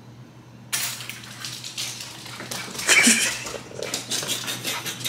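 A set of keys jingling, with a small dog reacting excitedly, because to it the sound of the keys means going outside. The jingling starts suddenly about a second in and is loudest around three seconds.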